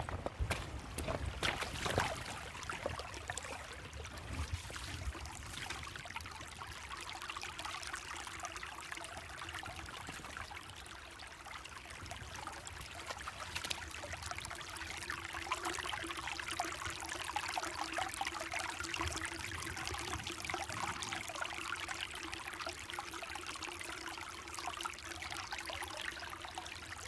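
Creek water trickling and babbling over rocks in a steady wash. There are a few sharp knocks in the first two seconds, and a faint steady hum joins from about halfway through.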